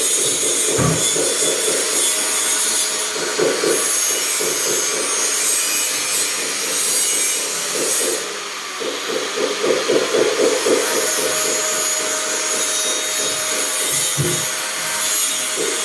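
Continuous rasping noise of wood being worked, like sawing or rubbing on wood, with a brief dip about eight seconds in.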